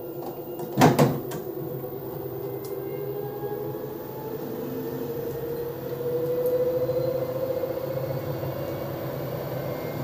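LG front-loading washing machine door pushed shut with a loud click about a second in, then the machine runs with a steady hum and a tone that slowly rises in pitch.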